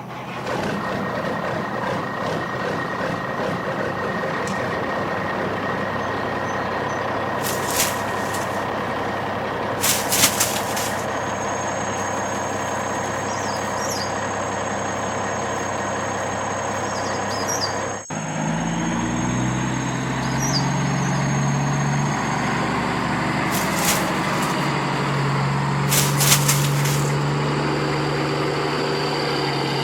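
Heavy truck engine running steadily, with several short hisses of air brakes. The engine sound changes abruptly about two-thirds of the way through.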